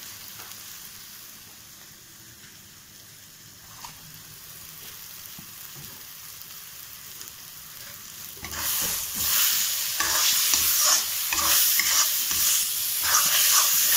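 Onion-and-spice masala frying in a kadhai, with a faint steady sizzle at first. About eight seconds in, a metal spatula starts stirring and scraping it around the pan, and the sizzle and scraping grow much louder.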